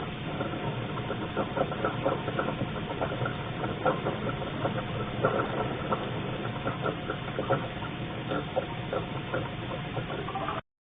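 Refrigerant flowing through a running refrigerator's cooling circuit: a steady hiss with irregular gurgling and crackling pops, several a second, cutting off abruptly near the end. This is a normal operating sound, not a fault.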